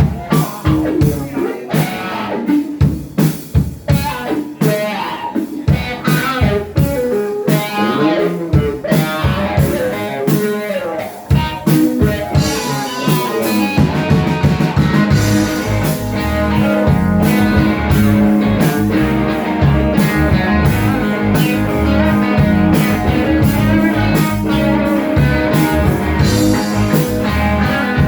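Live band playing instrumentally during a sound check, with electric guitar over a drum kit. At first the drum hits stand out with guitar lines; about halfway through, the full band settles into a steady, denser groove with sustained low notes.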